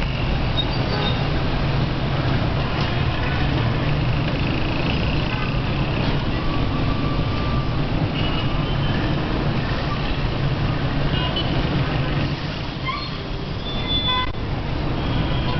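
Dense city traffic at a busy square: a steady rumble of car, minibus, bus and motorbike engines, with a few short horn toots now and then.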